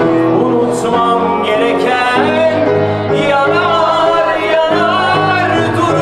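A man singing live into a microphone over instrumental accompaniment, a slow, sustained melody with long held notes.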